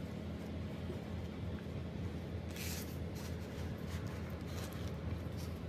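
Hands pressing a fish into a bed of damp coarse sea salt: crunching and scraping of the salt, loudest about two and a half seconds in, then a few softer scrapes. A steady low hum runs underneath.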